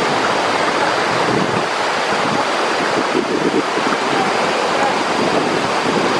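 River rapids: fast whitewater rushing over rocks in a steady, loud, even rush of water.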